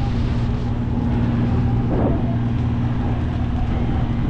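Steady low engine drone of the parasail tow boat's motor heard over wind noise, with a brief swell about two seconds in.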